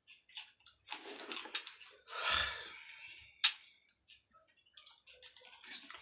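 Alexandrine parakeet dabbling its beak in a plastic cup of water with soaked puffed rice: soft watery splashes and small clicks of the beak against the cup, with a louder splash a little over two seconds in and one sharp click at about three and a half seconds.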